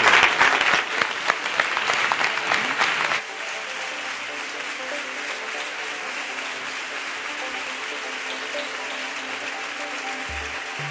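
A crowd applauding loudly for about three seconds, cut off abruptly. Quieter background music with held notes follows, and a few low bass notes come in near the end.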